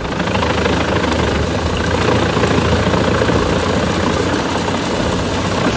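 Doppstadt DH 810 Puma wood chipper running steadily: a low engine drone under a dense, even rushing noise.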